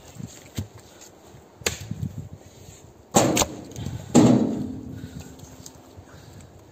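Pine firewood dropped into a metal trailer: a few light knocks, then two sharp clatters about three seconds in and a heavier bang a second later that rings on briefly as it fades.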